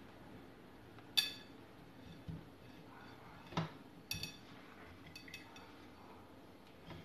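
A few light clinks with a short ring, about a second in and again around four and five seconds, with a dull knock between them, as a plate is handled while food is pressed into breadcrumbs on it by hand.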